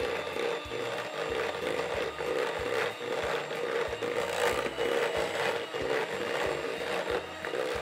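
Electric hand mixer running steadily, its beaters whipping butter and cream cheese into buttercream in a stainless steel bowl. Irregular clicks and scrapes come from the beaters knocking against the bowl.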